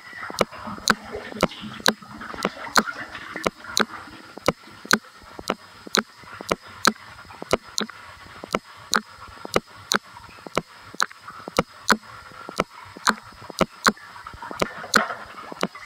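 Bathwater sloshing as a person moves in a full bathtub, stronger in the first few seconds and again near the end, under a steady ticking of about two to three sharp ticks a second.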